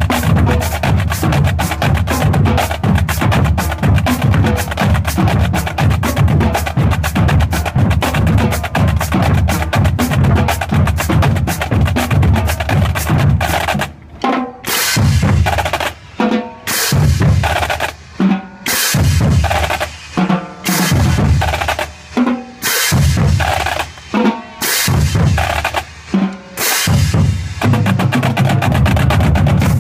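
High school marching drumline playing: fast, continuous snare and drum rolls with bass drums, giving way about halfway through to loud accented hits separated by short breaks.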